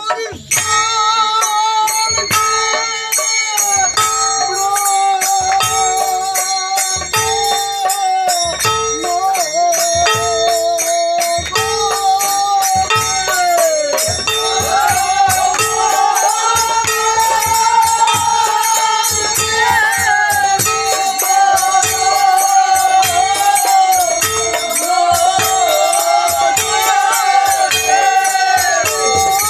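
Men's voices singing a folk song together, over a large barrel drum beaten in a steady rhythm with metal percussion jingling along.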